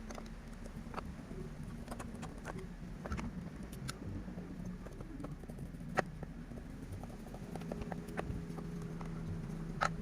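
Scattered clicks and taps of tools and metal parts being handled while the chainsaw is worked on, two sharper knocks about six seconds in and near the end, over a low steady hum.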